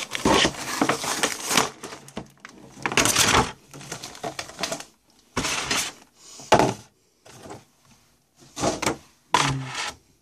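Handling of toy packaging: irregular rustling and clattering of cardboard and plastic as a toy is taken out of its box, with several sharper knocks.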